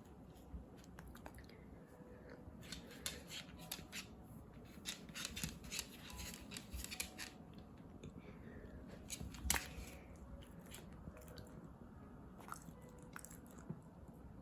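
A dog chewing a crunchy treat: irregular runs of short crunches and clicks, thickest in the first half, with one sharper crack about nine and a half seconds in.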